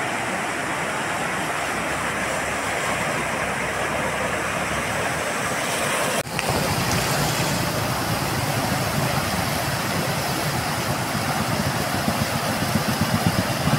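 Steady rush of floodwater pouring across a road, with a car and then an auto-rickshaw driving through it. The sound breaks off for a moment about six seconds in.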